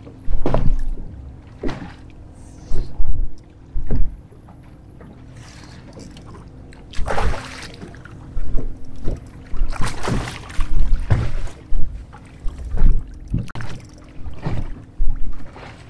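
A hooked bass splashing at the surface beside the boat, loudest about seven seconds in and again around ten seconds, over scattered low thumps of water and wind against the boat.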